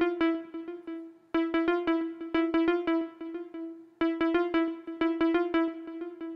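Synthesizer patch from Native Instruments Massive playing a short, quick pattern of repeated staccato notes on one pitch, looped about every two and a half seconds. A delay echoes each run and fades it out.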